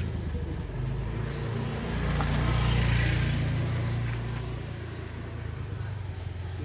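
Honda GX200 single-cylinder four-stroke engine on a KC12 concrete road cutter running steadily, swelling to its loudest about three seconds in, then easing back.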